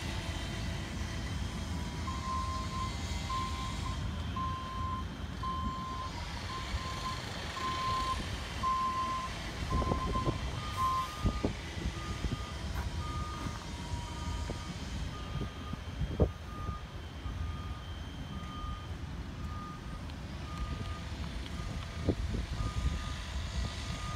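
A machine's reversing alarm beeps steadily, about two beeps a second; about halfway it changes to a slightly higher, slower beep. Underneath is the low rumble of a passenger train rolling away, with a few sharp knocks of its wheels.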